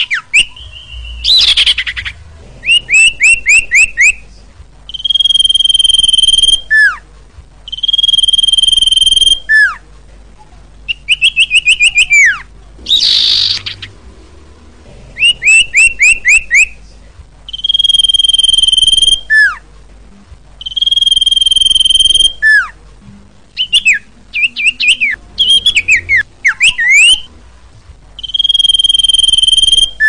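Common iora (sirpu) singing: long, flat whistled notes about a second and a half each, each ending in a short falling note. These alternate with runs of quick descending chirps, and there is one short harsh note partway through.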